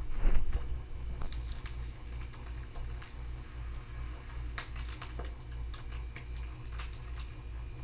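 An egg frying in oil in a Sori Yanagi cast-iron pan, cooked until its edges brown and crisp: scattered sharp pops and crackles of spitting oil over a low, pulsing hum. A louder burst of noise comes right at the start.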